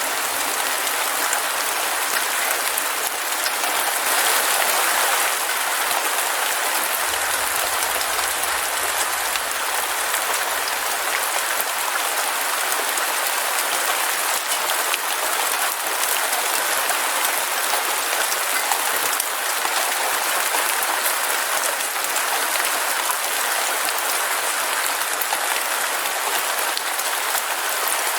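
Heavy rain falling steadily, a dense even hiss of countless drops.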